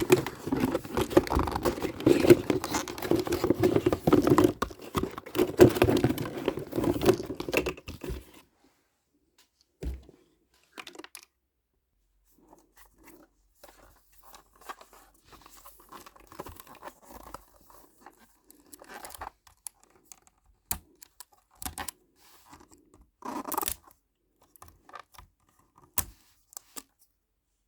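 Packaging being torn and crinkled open by hand, busy and fairly loud for about eight seconds, then stopping abruptly and giving way to soft rustles and scattered small clicks and taps.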